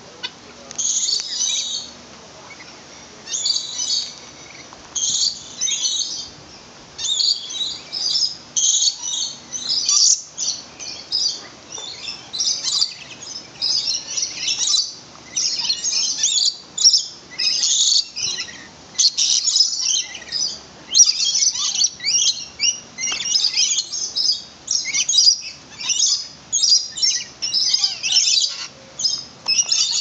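Lorikeets giving short, shrill screeching calls one after another. The calls come about a second apart at first and grow denser and almost continuous after about ten seconds.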